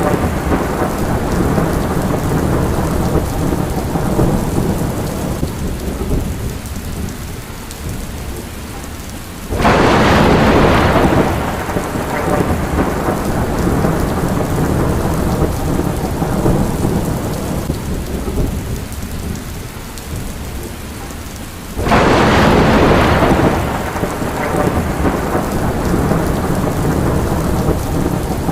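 Steady rain in a thunderstorm. Thunder breaks in sharply twice, about ten seconds in and again about twenty-two seconds in, and each clap fades into a rumble over a few seconds.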